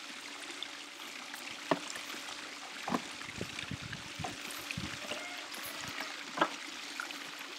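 Robotic pool cleaner's blue floating power cable being wound by hand onto its caddy cart: scattered light taps and knocks, three of them sharper, over a steady rushing background.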